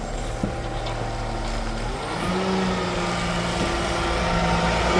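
Peterbilt McNeilus front-loader garbage truck's diesel engine running, its pitch stepping up about two seconds in as it revs, and growing louder as the truck comes closer.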